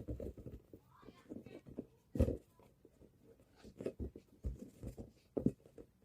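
A ball being bounced and tapped, making an irregular series of soft, dull thumps, the loudest a little over two seconds in.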